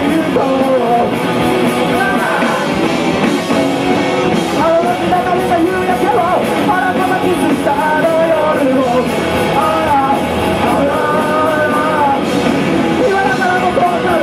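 Rock band playing a punk rock song, with a lead vocal singing over the band.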